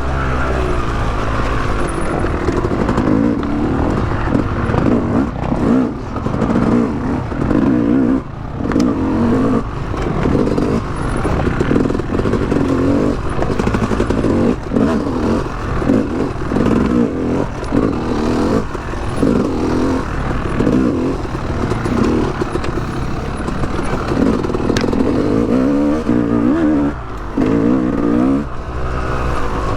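Yamaha YZ250X's 250cc two-stroke dirt bike engine revving up and down over and over as the throttle is worked on and off at low trail speed.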